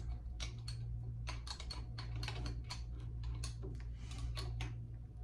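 Irregular light clicks and taps, about two or three a second, over a steady low hum.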